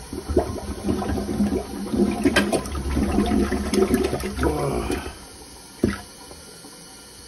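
Toilet flushing into a clogged bowl while a rubber plunger is pumped fast, with water sloshing and gurgling and scattered sharp clacks. The rush stops about five seconds in, and one sharp knock follows about a second later.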